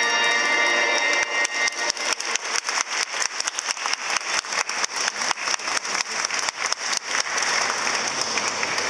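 A crowd applauding, with one nearby pair of hands clapping sharply about four to five times a second over the steady patter of the rest.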